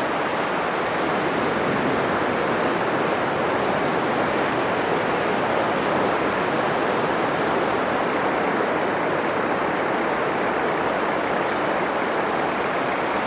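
Atlantic surf breaking on a sandy beach: a steady, unbroken wash of foaming waves with no single break standing out.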